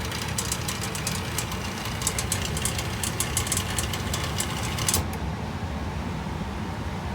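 A machine running with a steady low hum and rapid, irregular sharp ticking over it. The ticking stops abruptly about five seconds in, leaving the hum. It is a noise that remains after a repair.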